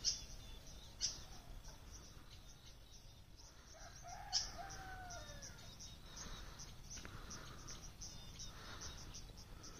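A rooster crowing faintly once, a drawn-out call of about two seconds that falls in pitch at the end, a few seconds in. Around it are a few short, high chirps over a quiet rural background.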